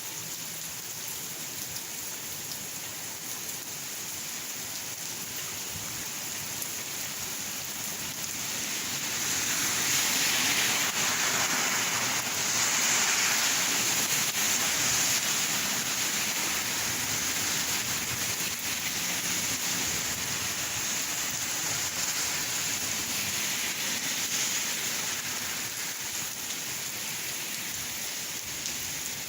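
Steady rain falling and splashing on surfaces; the downpour gets heavier about a third of the way in, stays heavy for a while, then eases off near the end.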